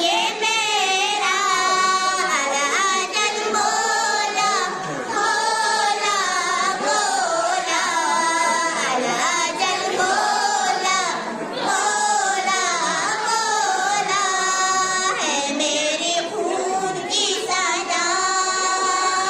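Young girls singing a manqabat, an Urdu devotional poem, into a microphone, in long held lines with ornamented, wavering notes.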